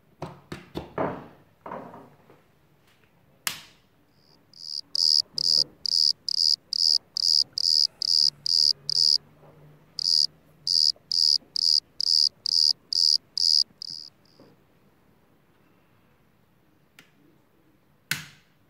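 Electronic beeper sounding a fast run of short high-pitched beeps, about two and a half a second, with a brief break in the middle. A sharp click comes just before the beeps and another near the end.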